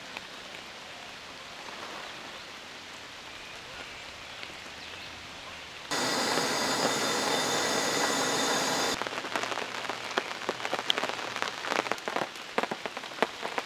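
Steady rain falling. About six seconds in, a louder steady hiss from a two-burner camp stove's gas burner heating a percolator runs for about three seconds and cuts off. Then comes rain dripping in irregular taps.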